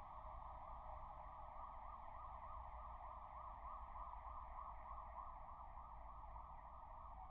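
Emergency vehicle siren in a fast yelp, its pitch sweeping up and down several times a second, over a low steady rumble.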